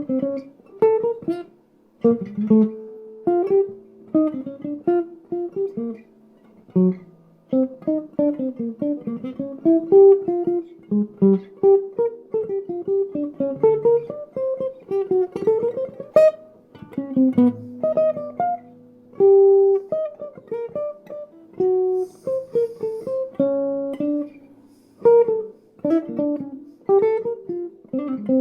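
Solo jazz guitar playing a chord-melody passage: plucked melody notes and short runs ringing over sustained lower chord tones.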